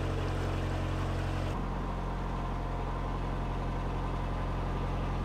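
Narrowboat engine running steadily while the boat cruises, an even low hum whose tone changes slightly about a second and a half in.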